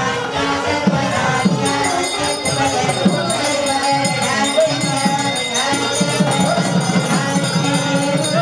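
Music with voices and a steady beat of jingling, rattling percussion.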